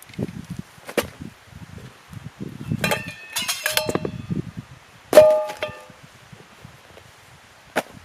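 Metal items clinking and clanging as they are handled, with short ringing tones after each strike: a quick run of knocks about three seconds in, then one loud ringing clang a couple of seconds later. Low rustling and scattered clicks of gear being moved fill the gaps.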